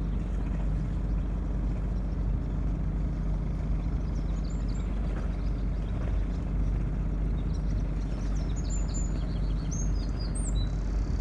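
Motor boat's engine running steadily at low canal speed, a low even rumble. Birds chirp over it from about four seconds in, more busily near the end.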